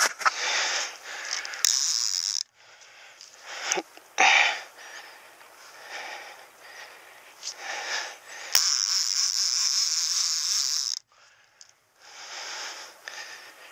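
Fishing reel working against a large hooked black carp: irregular clicking and whirring, with a short steady buzz about two seconds in and a longer, louder one of about two and a half seconds past the middle, as the drag gives out line under the fish's pull.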